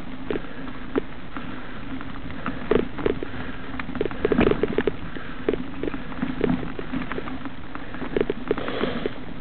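Mountain bike rolling along a dirt woodland trail: tyre noise and a steady low hum, broken by irregular knocks and rattles from the bike jolting over bumps, most of them about four to five seconds in.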